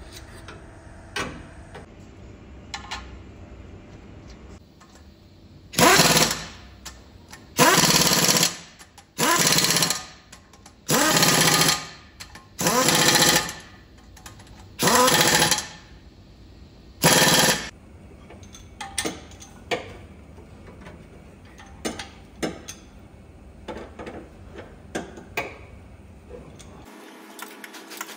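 Impact wrench hammering in seven bursts of about a second each, undoing bolts at the engine's flexplate, starting about six seconds in and stopping a little past halfway. Light clinks of tools and metal parts come before and after.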